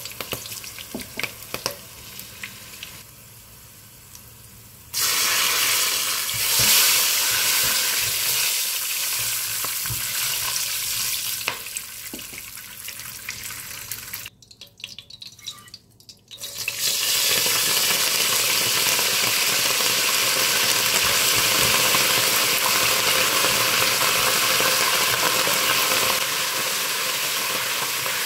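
Whole spices (cinnamon sticks, star anise, cardamom pods) and bay leaves frying in hot oil in a pot, a steady sizzle with a spoon stirring now and then. The sizzle drops away briefly about halfway through, then comes back louder and even, with curry leaves frying in the oil by the end.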